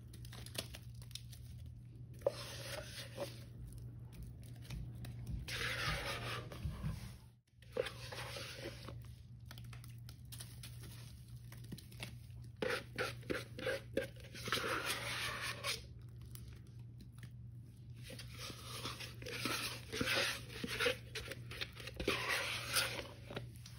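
Thick wet paste of Ajax cleanser powder being squished by hand and scraped and poured out of a plastic tub, in irregular bursts of wet, crackly squishing with many small clicks.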